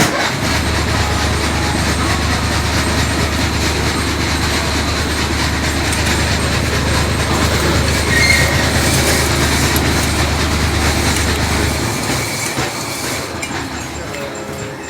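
Electric pork-skin (nem bì) cutting machine with a toothed roller, running with a steady low motor hum and a rattling, clattering mechanical noise. The hum stops about twelve seconds in and the machine winds down over the next second or so.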